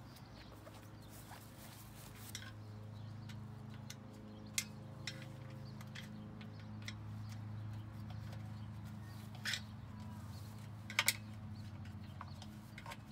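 A few sharp clicks and ticks of a screwdriver and small parts being worked at a metal umbrella pole, including a quick double click about eleven seconds in, over a steady low machine hum.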